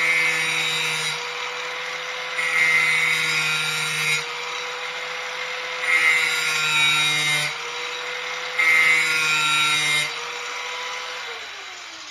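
Corded angle grinder running and sharpening a steel lawn mower blade edge, in four louder grinding passes of about two seconds each over the motor's steady whine. Near the end it is switched off, and the whine falls in pitch as the disc spins down.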